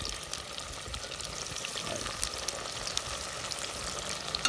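Breaded pieces of surubim cachara deep-frying in a cast-iron pot of hot pork lard and oil: a steady sizzle with many fine crackles.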